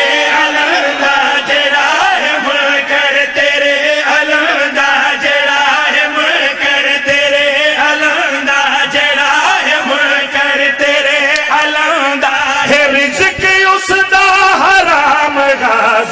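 A group of men chanting a qaseeda together into a microphone, amplified over loudspeakers, their voices held and wavering without a break.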